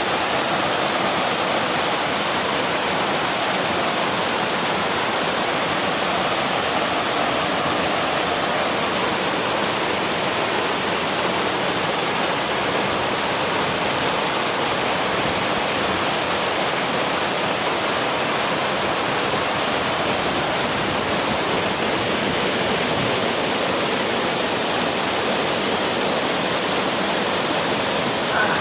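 Water pouring down a mountain waterfall: a loud, steady rush that does not change.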